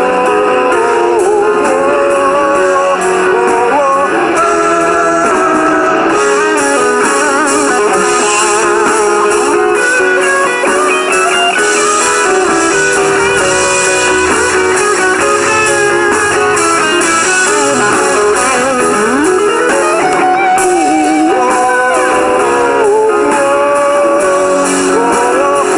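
Instrumental break in a rock song: a lead guitar plays a melody with pitch bends and vibrato over the band's steady accompaniment.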